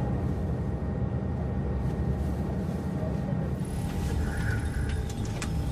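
Steady low rumble of airliner cabin and engine ambience, with a faint steady tone over it and a few sharp clicks near the end.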